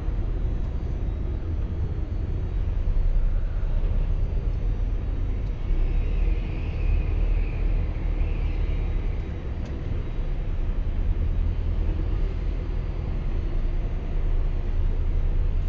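Truck's diesel engine running at low speed as the lorry creeps along a ferry's vehicle deck, heard from inside the cab as a steady low rumble.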